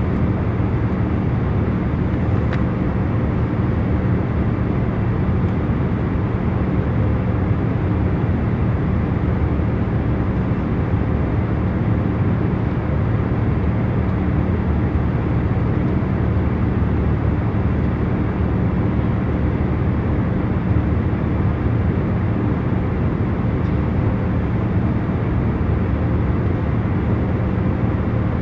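Airplane cabin noise: a steady drone of engines and rushing air, with a constant low hum of several tones underneath.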